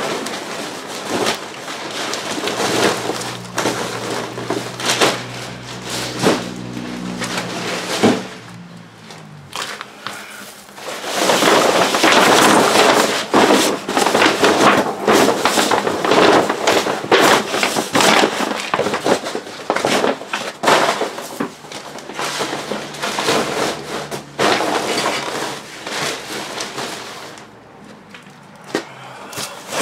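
Garage junk and boxes being broken down and crushed by hand for trash bags: a long run of irregular crackling, crunching and snapping, thickest in the middle. A steady low hum sits underneath for stretches.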